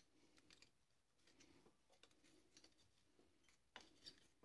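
Near silence, with a few faint scattered ticks and two slightly louder small clicks near the end.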